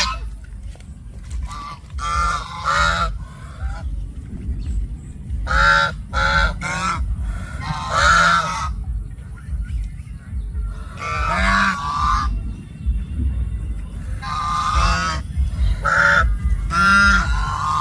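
Loud animal calls, pitched and wavering, coming in clusters every two to three seconds over a steady low rumble.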